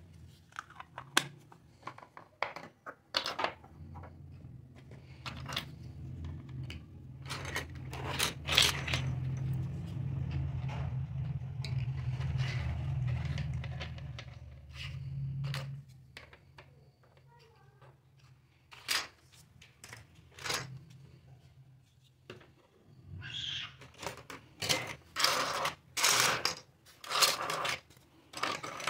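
Small hard-plastic toy kitchen pieces clicking and clacking as they are picked up, knocked together and set down on a table, in irregular taps that come thicker and louder near the end. A low hum runs under the first half.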